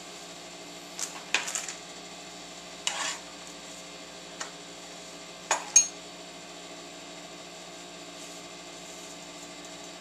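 Light clatter of kitchen utensils on a wooden cutting board: a slotted spatula being set down and tortillas being handled. About half a dozen short knocks come in the first six seconds over a steady low hum, then only the hum remains.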